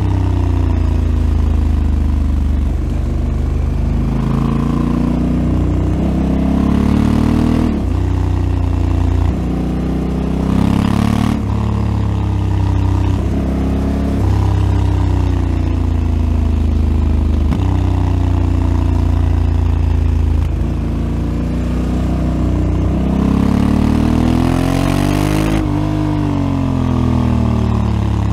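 Honda Africa Twin CRF1100L's 1084 cc parallel-twin engine through its stock exhaust under way, pulling up through the revs and dropping back at each gear change, several times over. Near the end it revs up and then winds down, and twice there is a short rush of hiss.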